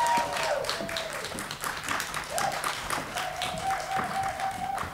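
Small audience clapping steadily, with a long held cheer fading out about half a second in.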